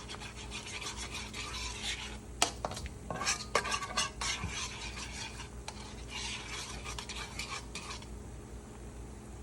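A spoon stirring a honey, lemon, soy and garlic butter sauce in a pan, scraping the pan bottom in bursts with a few sharp clicks of the spoon against the pan. The stirring stops about eight seconds in.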